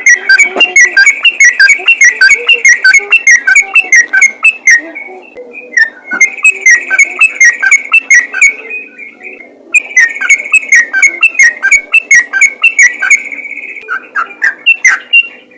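Yellow-vented bulbul (trucukan) singing fast and continuously, a rapid run of bubbly whistled notes at several a second. The song comes in three long runs with brief breaks about five and nine seconds in.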